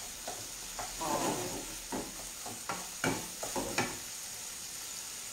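Chopped sausage and onion sizzling as they brown in a pan, stirred with a wooden spatula that scrapes against the pan about five times.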